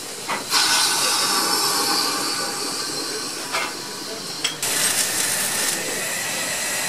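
Steam locomotive hissing steam: a steady hiss starts about half a second in and runs for about three seconds, then after a short break a second hiss of about a second settles into a softer steady hiss. A few sharp clicks sound in between.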